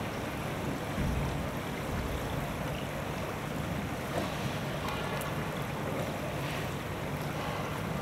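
Steady rushing noise of a shallow stream running over its channel bed, with low wind rumble on the microphone.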